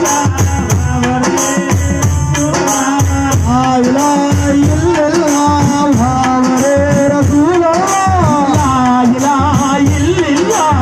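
Ayyappa devotional bhajan: a man singing a wavering melody into a microphone over hand drums and other percussion keeping a quick, steady beat.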